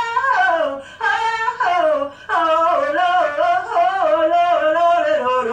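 A woman singing wordless runs in a strained, belting voice: held notes that waver and slide up and down in quick turns.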